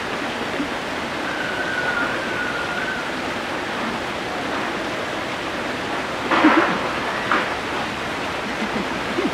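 Steady rushing background noise. A faint, slightly wavering high tone is heard from about one to three seconds in, and a short louder burst of noise comes about six and a half seconds in.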